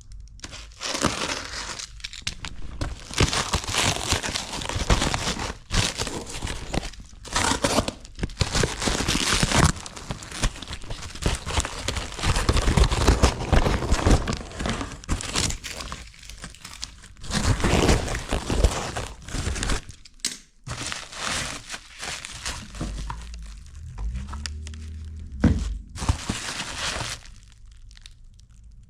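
A package being unwrapped by hand: irregular crinkling, rustling and tearing of wrapping material, with occasional knocks, in a small room.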